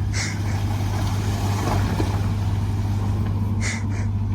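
Full-size pickup truck engine running steadily, a low drone, with short hissing sounds just after the start and twice near the end.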